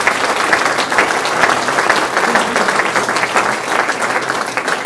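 Audience applauding, dense and steady clapping that begins to thin out near the end.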